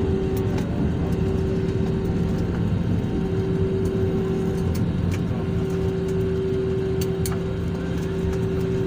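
Airliner cabin noise: a steady engine drone with a low rumble under two constant hums, one higher and one lower, with a few faint clicks.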